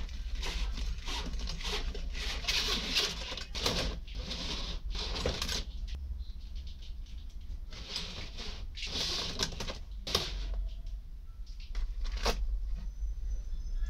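Irregular rustling and scraping of a thin plastic fuel line and gloved hands being worked through a fuel tank's sender-unit opening, with a few sharp clicks, over a steady low hum.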